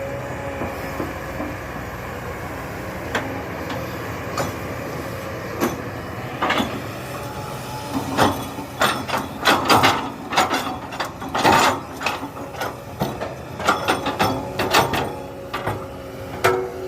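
A hydraulic excavator's diesel engine running steadily, with a string of sharp metallic clanks and knocks that come thick and fast in the second half.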